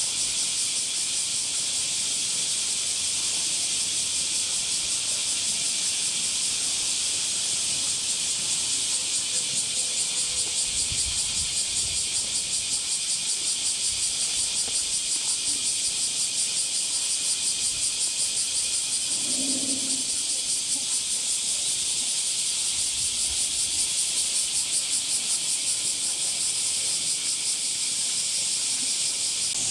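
Summer cicada chorus: a steady, high-pitched hiss with a fast pulsing beat.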